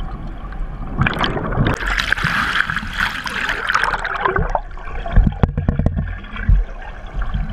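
Water gurgling and swirling around a camera held underwater in shallow water. About a second in, a loud rush of bubbling and splashing lasts some three seconds, followed by a few dull knocks around five to six seconds in.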